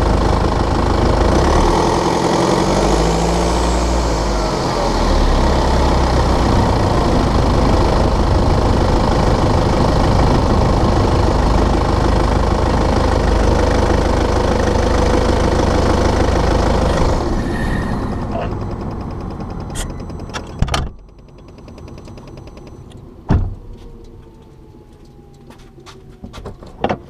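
BMW 520d's N47 four-cylinder diesel engine running, its speed rising about two seconds in and then holding steady, with the rattling/ticking it makes when cold and under load, which the owner traces to a faulty injector. Near the end the engine sound dies away, leaving a few sharp knocks.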